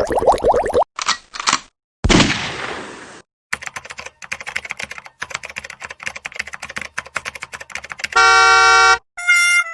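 A run of stock sound effects: a quick pulsing sound, two brief whooshes, a sudden hit that fades off in a hiss, then about four and a half seconds of fast computer keyboard typing. The typing is followed by a flat, buzzy horn-like tone lasting under a second, and a few musical notes begin at the very end.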